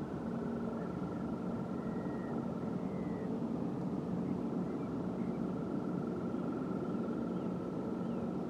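Steady industrial machinery at a chalk mine, running continuously with a low hum and a high whine that shifts slightly in pitch. A few faint bird chirps sound over it.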